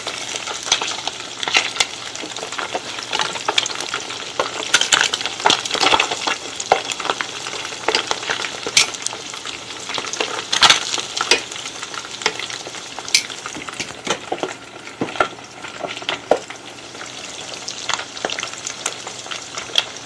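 Whole fish frying in hot oil in a pot: a steady sizzle with frequent sharp crackles and pops.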